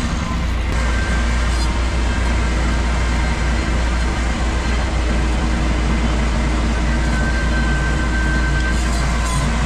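Ventrac compact tractor running steadily with its Tough Cut deck cutting overgrown grass, a constant low engine hum under the rush of the blades.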